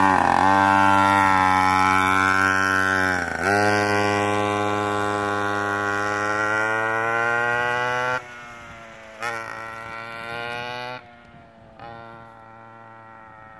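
Warmed-up 49cc two-stroke pocket ATV engine at full throttle. It dips twice briefly early on, then its pitch climbs steadily as the machine pulls away. The sound falls off sharply after about eight seconds and again near eleven seconds, growing fainter as the ATV rides off.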